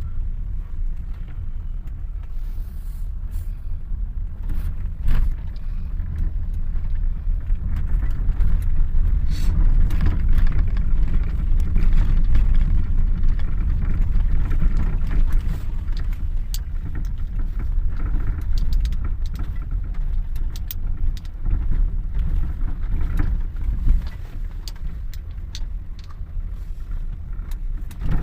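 A vehicle driving along a graded dirt road: a steady low rumble with scattered clicks and rattles of gravel throughout.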